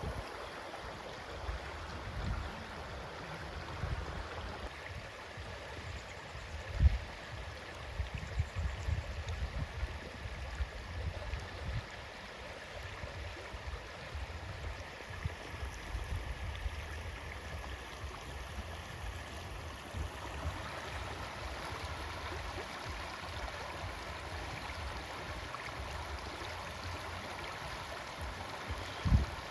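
Steady rushing of a flowing stream, with irregular low rumbles and a sharp low thump about seven seconds in.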